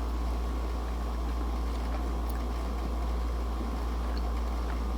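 A steady low hum of background room noise, with a few faint ticks.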